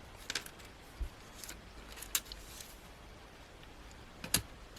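A few faint taps and rustles of small cardstock die cuts being handled, spread out over a few seconds.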